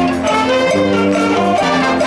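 Brass music playing: held chords that change every second or so.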